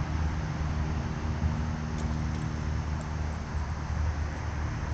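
Steady low rumble of distant road traffic, with a couple of faint high ticks.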